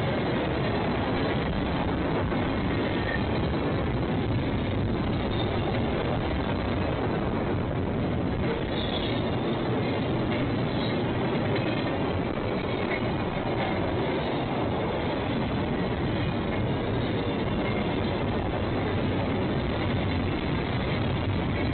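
Railroad cars rolling past on the track, a steady, unbroken rolling noise of steel wheels on rails, with a couple of faint brief squeaks near the middle.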